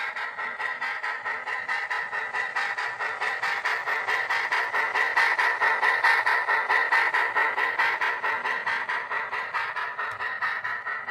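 H0-scale model steam locomotive's sound unit playing a fast, even chuffing exhaust beat, about four to five chuffs a second, growing louder towards the middle and easing off near the end as the train passes.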